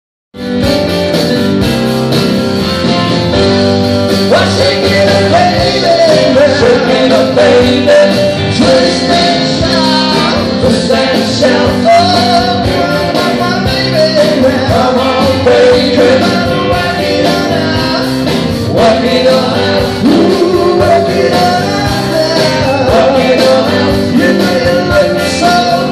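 A rock-and-roll band playing live with a singer, loud and steady from the first moment.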